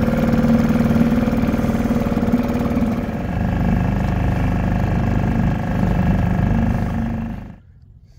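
Small outboard motor on a dinghy running steadily, its pitch easing slightly lower about three seconds in, then stopping abruptly near the end.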